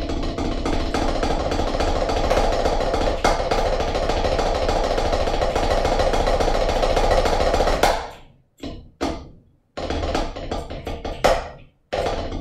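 Snare drum played with sticks: a sustained roll for about eight seconds, then separate accented strokes and short flurries with brief silences between them.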